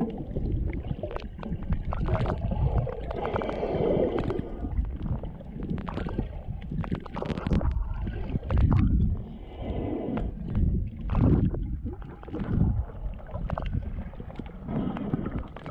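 Underwater water noise picked up by a submerged camera while snorkeling: muffled surging and gurgling that swells and fades every second or two, with bubbles and many short clicks.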